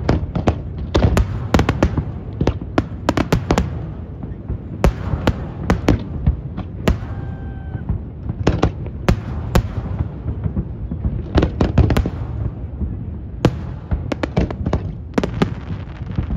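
Aerial fireworks shells bursting in quick, irregular succession: many sharp bangs and crackles over a continuous low rumble.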